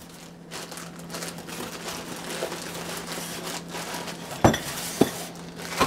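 Clear plastic bag crinkling and rustling as it is handled around a boxed model train tender, with two sharp knocks about four and a half and five seconds in.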